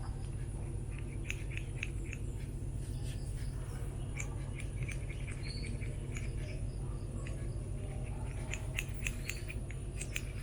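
Hyundai i10 engine idling with a steady low hum, running smoothly after its clogged idle passage was cleaned. Birds chirp in short bursts over it.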